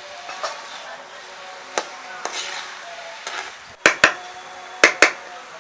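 Spatula stirring goat blood fry in a frying pan, knocking against the pan over a low sizzle. A few light knocks come first, then two loud double knocks in the second half.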